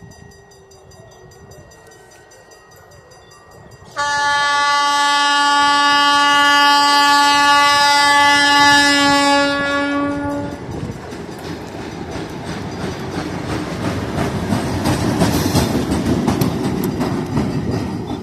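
ALCo RSD-16 diesel locomotive sounding its air horn in one long blast that starts suddenly about four seconds in and lasts about six seconds. The locomotive then passes by, its engine rumble and wheels clattering on the rails growing louder toward the end.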